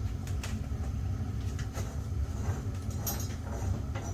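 A steady low hum with a few light clicks and rustles over it.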